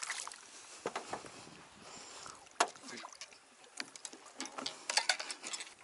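Irregular splashes and knocks as a hooked black bass is brought to the side of a small fishing boat and landed by hand: the fish breaking the water beside the hull, with handling knocks on the boat. The sharpest splashes or knocks come about two and a half seconds in and again near the end.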